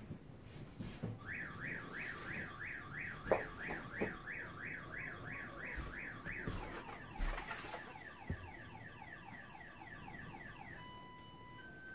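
Car alarm siren cycling through its patterns: a repeated rising-and-falling whoop about three times a second, then faster falling chirps, then alternating two-pitch steady beeps near the end.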